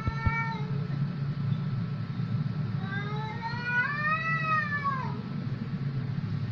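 Domestic cats in a face-off, one giving drawn-out threat yowls: the end of one yowl at the start, then a long yowl about 3 s in that rises and falls over two seconds.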